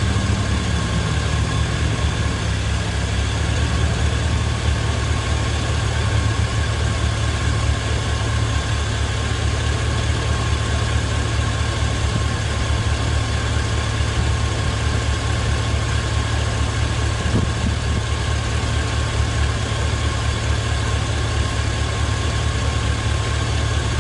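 Pickup truck's warmed-up gasoline engine idling steadily with a constant low hum. It is running under a combustion-leak test whose fluid stays blue, showing no sign of a head gasket leak.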